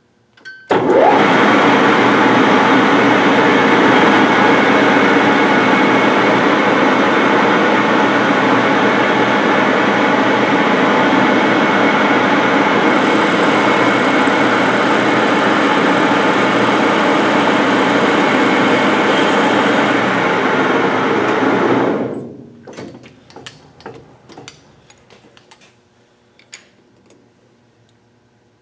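Metal lathe running with a four-jaw chuck spinning, taking a cut on a metal sleeve to bring it down to a press-fit size. The machine starts about a second in, runs steadily and loudly, and stops near the end, leaving scattered light clicks as the part is handled and measured.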